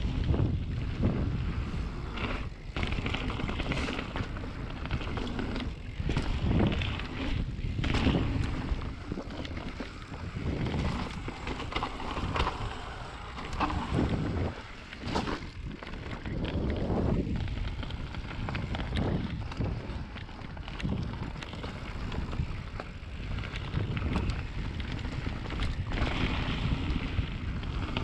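Kona Honzo CR carbon hardtail mountain bike descending a dirt trail at speed: tyres rumbling over the dirt with frequent rattles and knocks over bumps, under heavy wind noise on the microphone.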